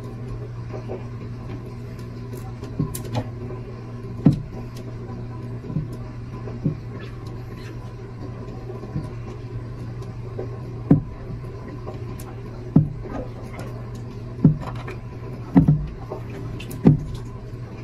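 Steady low hum of aquarium equipment, with about a dozen dull knocks at irregular intervals, the loudest in the second half: a snapping turtle and its rat prey bumping against the tank glass.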